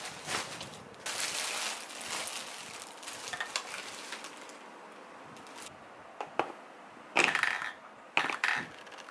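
Clear plastic packaging crinkling and rustling as Bissell steam mop parts are unwrapped, busiest for the first few seconds. In the last few seconds come several sharp clicks and knocks of the mop's plastic parts being handled.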